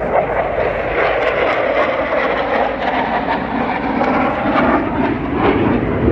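An aircraft flying past during an air display, its engine noise a loud, steady rush.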